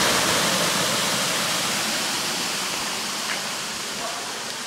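Water rushing out through a levada sluice gate in a steady, even gush that slowly fades as the gate is being closed.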